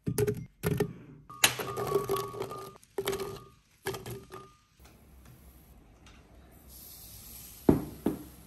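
Garlic cloves dropping into a glass blender jar, a quick run of clunks and knocks against the glass. Then comes a soft hiss as sugar is spooned in, and two more knocks near the end.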